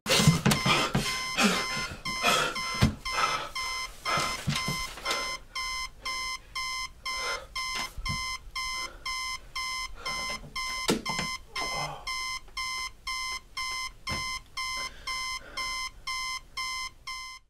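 Electronic alarm beeping in a steady repeating pattern, about two beeps a second, growing louder about five seconds in, with a few soft knocks and rustles in between; it cuts off suddenly near the end.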